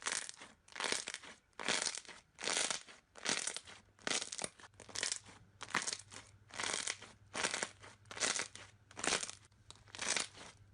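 Slime being squeezed and pressed by hand in a steady rhythm, about two presses a second.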